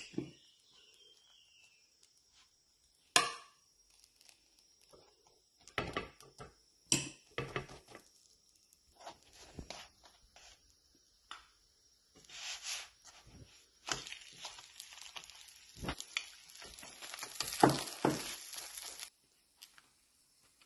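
Metal spatula and hands working a filled flatbread on a flat iron griddle (tava): scattered knocks and taps, then in the second half a stretch of hissing with more taps as the folded börek is pressed and cooks, which stops suddenly near the end.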